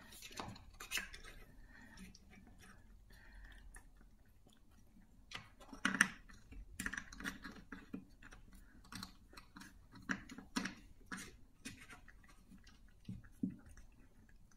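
Cat working a wooden puzzle toy: light irregular clicks and knocks of the wooden covers and sliders, the loudest about six seconds in, with soft chewing.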